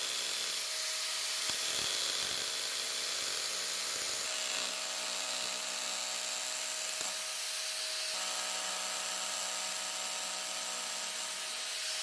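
Arbortech Power Chisel, a reciprocating chisel driven by an angle grinder, running steadily as its V chisel cuts a groove into wood: an even hiss over a faint motor hum.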